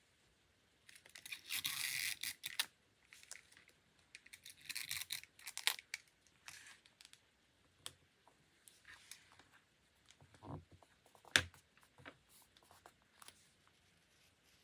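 Paper tearing in two stretches of about a second and a half each, followed by scattered light taps and clicks of paper materials on a desk.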